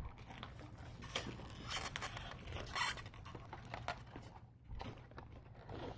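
Toy packaging being handled and opened: scattered plastic and cardboard rustles with short clicks, two louder rustles about two and three seconds in.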